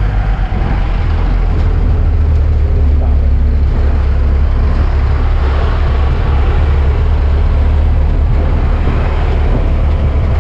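Motor vehicle driving: a steady low engine drone with road noise.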